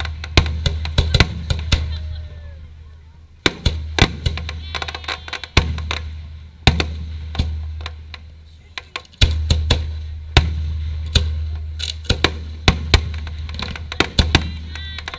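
Fireworks aerial shells bursting: deep booms that fade over a couple of seconds, come roughly every two to four seconds, and are mixed with many sharp cracking bangs.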